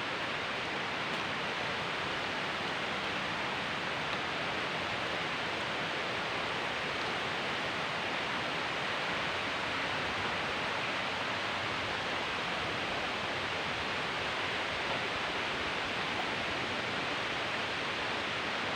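Waterfall rushing, a steady even hiss of falling water with no break.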